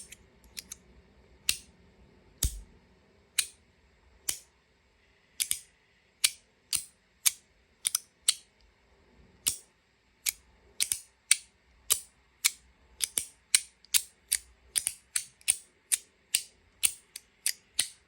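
Magnetic haptic fidget toy snapping between its magnetic detents: sharp metal clicks, scattered at first, then a quick run of about two to three a second from about ten seconds in.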